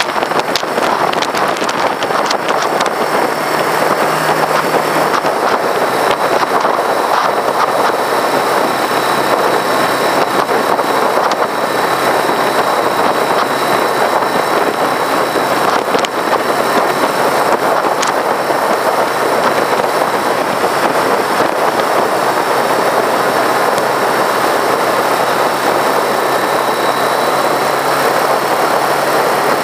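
Motorcycle ride at steady road speed: wind rushing over the microphone, with the bike's engine running evenly underneath.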